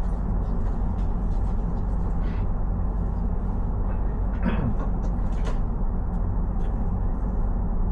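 Steady low vehicle rumble, like a train running, with scattered light clicks and one short sound falling in pitch about four and a half seconds in.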